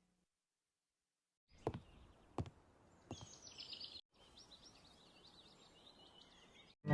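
Three footsteps, then small birds chirping. The chirping breaks off for a moment just after the middle and resumes, faint, until the end.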